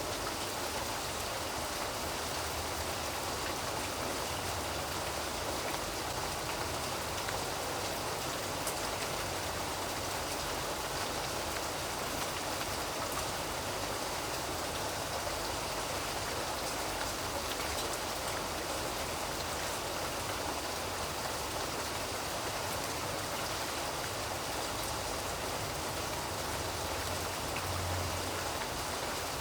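Steady rain falling, with scattered drops pattering on a surface; a brief low rumble shows near the end.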